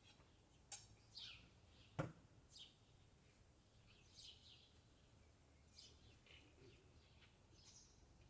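Small birds chirping faintly in short, scattered, downward-sliding high notes. Two sharp clicks stand out, one near the start and one about two seconds in.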